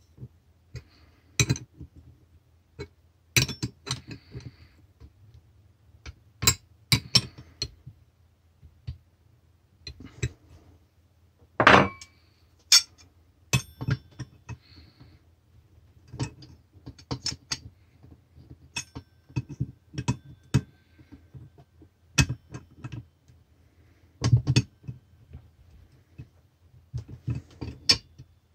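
Metal tools and parts clinking and knocking at irregular intervals, with short rings after some strikes, over a faint steady low hum.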